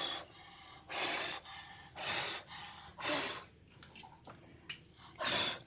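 A person breathing heavily close to the microphone: five short, noisy breaths about a second apart.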